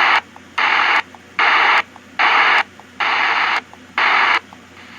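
Weather radio speaker giving a regular run of static hiss bursts, about six of them, each roughly half a second long and coming a little more than once a second.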